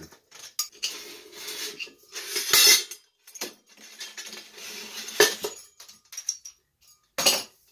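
Metal scraping and clanking of a floor lamp's brass-plated pipe and pot-metal fittings being twisted and worked loose from the lamp base. The loudest clank comes about two and a half seconds in, with sharper knocks about five and seven seconds in.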